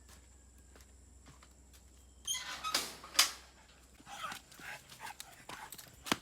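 A dog barking and yipping in a run of short, sharp bursts, starting about two seconds in and loudest early on in the run, with a sharp click near the end.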